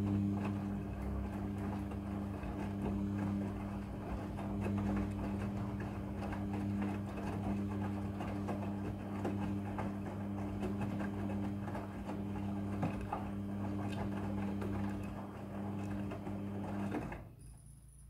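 Front-loading washing machine tumbling a load of wet clothes in the wash cycle: a steady motor hum over the noise of the turning drum and laundry. The sound stops suddenly about seventeen seconds in as the drum comes to rest.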